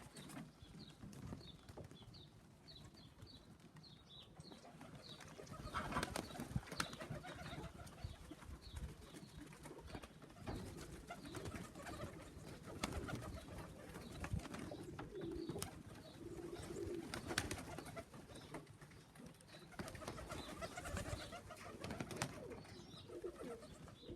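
Pigeons cooing softly at a loft, with faint high chirps now and then.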